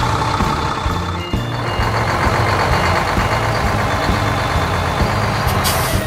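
Heavy construction-vehicle engine sound effect running steadily. A rushing noise lies over it from about a second in.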